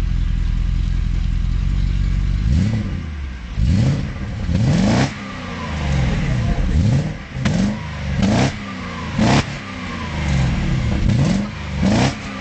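Mercedes E 50 AMG's V8 idling steadily, then revved in a series of quick throttle blips, each rising sharply and falling back, about ten of them.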